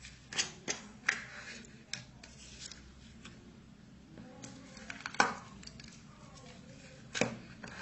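Crunchy slime being squeezed and worked by hand, giving irregular sharp crackles and pops, the loudest about five seconds in and again shortly after seven seconds.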